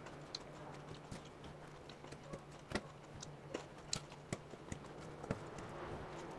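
Metal fork clinking and scraping against a stainless steel salad bowl: light, irregular clicks as salad is forked up.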